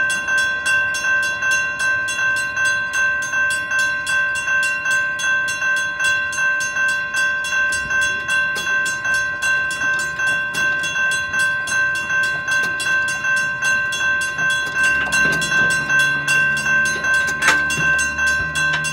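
Railroad crossing bell ringing in steady, evenly repeated strokes, with a sharp knock near the end. The crossing is malfunctioning, which the maintainer puts down to a burned-out coil in the gate's hold-clear device.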